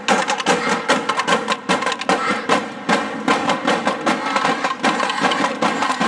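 Drum line of snare drums and bass drums beating a fast, steady rhythm.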